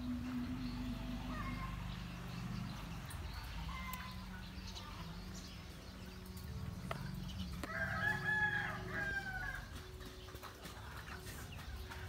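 A rooster crows once, a single drawn-out call of about two seconds past the middle, over a steady low rumble.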